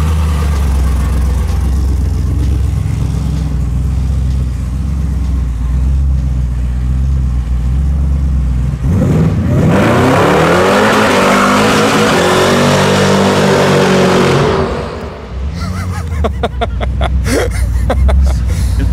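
Supercharged LS3 V8 of a Chevrolet Impala idling with a deep, steady rumble. About nine seconds in it revs up sharply and the rear tyres spin in a burnout, with engine and tyre noise loud for about five seconds, then falling away into a rapid, uneven burble.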